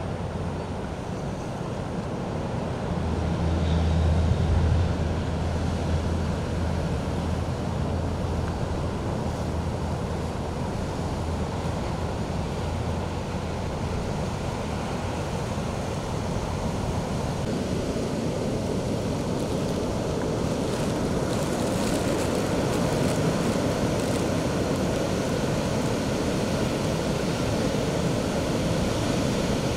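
Ocean surf washing over a rocky reef shore, with wind: a continuous rushing noise. A low rumble sits under it for a while near the start, and the surf grows fuller in the second half.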